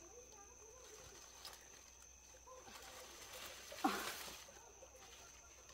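A heavy bunch of green bananas being lifted off a bed of cut banana leaves: faint rustling, then about four seconds in a short strained vocal sound with a burst of leaf and stalk rustling as the bunch comes up.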